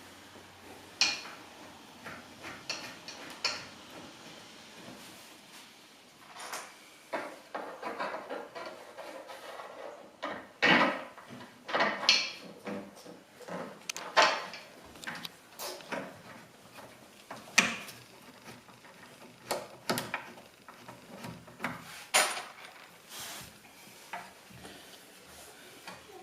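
Irregular knocks and clicks of wooden cot parts being handled and fitted together as bolts are threaded by hand into the sides.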